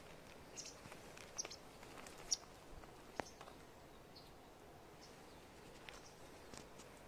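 Faint outdoor ambience with a few short, high bird chirps scattered through it and occasional light clicks.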